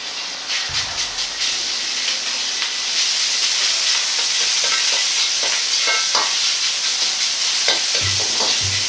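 Ground pork frying in hot oil in a wok, a steady sizzle that grows louder about three seconds in, with the metal ladle scraping and knocking against the pan.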